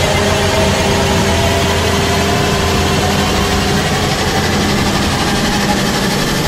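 Hepco HG180D motor grader's diesel engine running steadily under load while its blade cuts through soil and grass.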